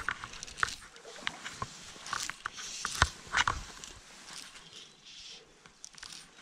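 Close handling noise from fly fishing: rustling and scattered sharp clicks as fly line is stripped in by hand and the rod and reel are worked, with the sharpest click about three seconds in.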